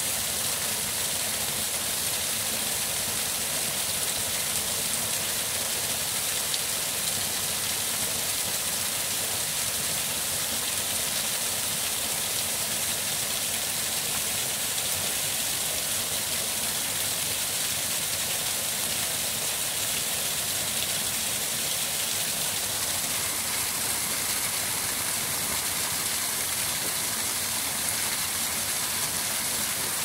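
A small waterfall splashing steadily down over rock, a constant even rush of falling water.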